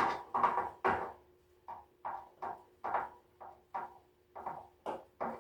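Screw being turned out of the heater's housing with a screwdriver: a rapid run of short scraping strokes, about three a second, one for each turn of the driver.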